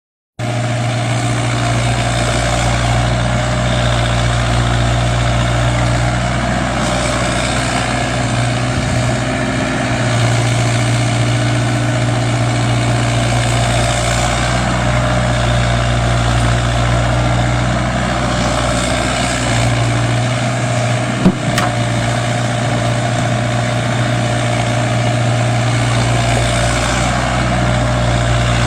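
Mini Kubota excavator's diesel engine running steadily while digging, with one sharp knock about three quarters of the way through.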